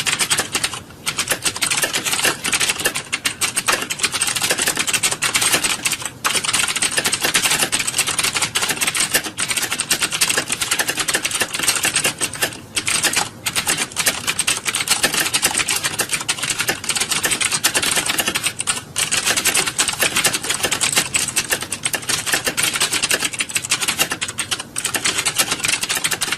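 Computer keyboards being typed on by many people at once, as in an exam hall typing test: a dense, continuous clatter of keystrokes with a few brief lulls.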